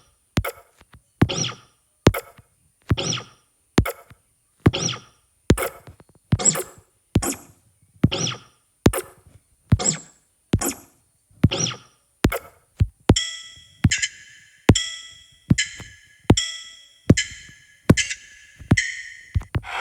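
Drum-machine style beat from the General 128 sound pack in the KORG Module Pro iPad app, one hit a little more often than once a second with light clicks between. About two-thirds of the way through, a short high pitched synth note starts sounding with each hit.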